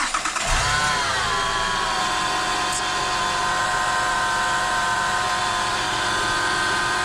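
Honda Pilot 3.5-litre V6 just started, its revs flaring briefly about a second in, then idling with a steady high-pitched whine. The whine comes from a failing alternator, the classic noise often mistaken for a power steering pump.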